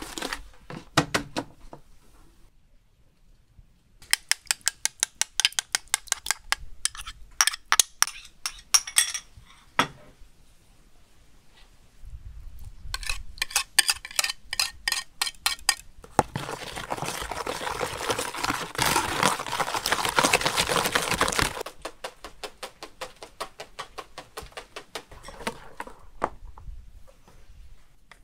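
Wire whisk beating butter into egg batter in a plastic bowl: runs of rapid clicking strokes, with about five seconds of continuous fast whisking in the middle.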